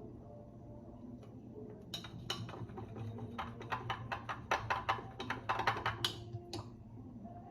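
A quick run of light clicks and taps, starting about two seconds in and stopping shortly before the end, over soft background music.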